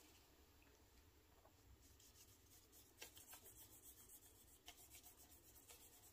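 Faint scratching and rubbing of a cotton swab smearing ink across paper, with a few light taps about three seconds in and again near five seconds.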